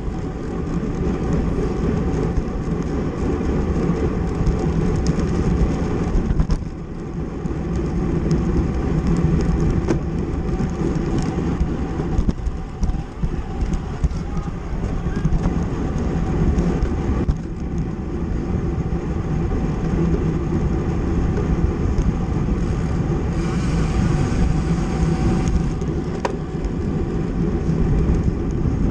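Steady wind rush buffeting the microphone of a camera riding on a racing bicycle.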